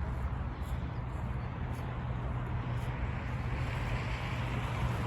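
Wind buffeting the microphone: a steady low rumble with an even hiss above it.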